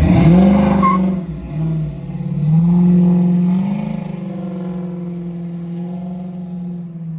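A motor vehicle's engine revving up, easing off about a second and a half in, then pulling up again and holding a steady pitch.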